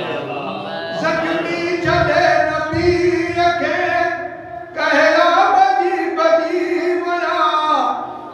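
A man's voice singing a devotional recitation into a microphone in long, held melodic lines, with a short pause for breath a little past halfway.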